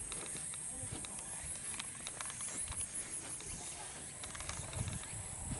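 Insects trilling in a steady, high-pitched buzz of rapid, even pulses, with scattered faint clicks over it.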